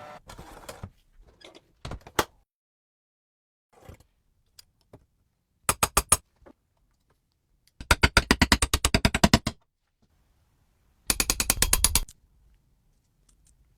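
Rapid runs of sharp mechanical clicks, like a ratchet or gear train being turned by hand. A few single clicks come first, then a short burst about six seconds in, a longer run of about a second and a half near eight seconds, and another short burst about eleven seconds in.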